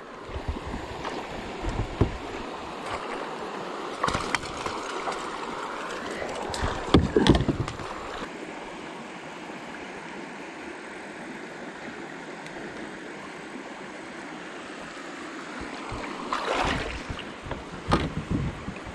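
Water moving around a plastic fishing kayak, with wind on the microphone, broken by several short knocks and splashes while a hooked smallmouth bass is landed in a net.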